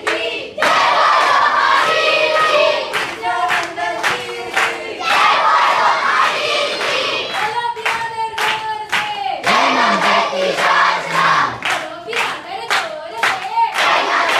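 A group of young voices singing together in unison over steady rhythmic hand clapping.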